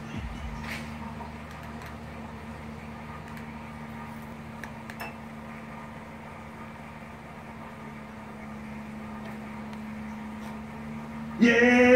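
Motorized electric projector screen running as it unrolls downward: a steady, even motor hum. Loud music cuts in near the end.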